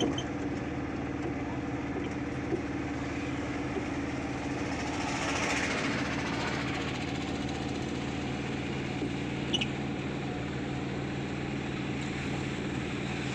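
Mahindra Jeeto mini-truck's engine running steadily while driving, a constant drone heard from inside the cab, with road and cab noise.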